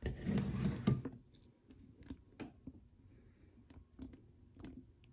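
Handling noise on a tabletop: a brief rustle at the start, then scattered light clicks and taps as small polymer clay pieces are picked up and set down.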